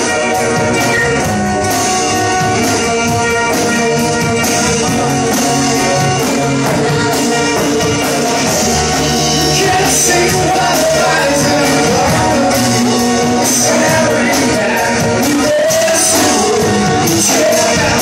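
Live band playing an acoustic rock song: acoustic guitar and drum kit, with a singer's voice over them in the second half.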